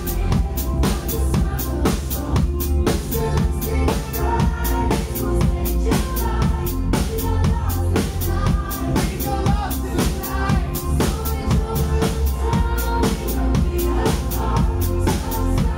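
Live pop band playing with a drum kit keeping a steady kick-and-snare beat over bass and sustained keyboard notes.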